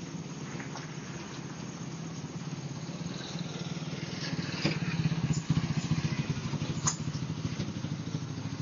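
A motor scooter's small engine running with a steady low putter, getting louder about halfway through as it rides past. Two sharp clicks come in the middle.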